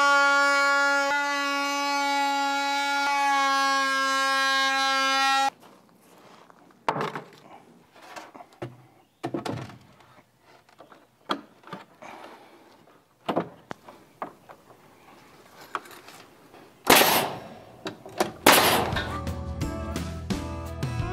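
A held musical note stops abruptly about five seconds in. Then come sparse sharp wooden knocks and thuds, roughly one every two seconds, from rough-sawn pine boards being fastened to nailers on a barn wall. A loud noisy burst comes about seventeen seconds in, and guitar music starts near the end.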